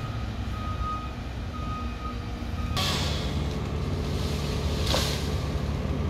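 A truck's reversing alarm beeping at a steady pace, about once a second, over the low running of a truck engine. The beeping stops about two seconds in, and a louder rushing noise with a steady low hum takes over.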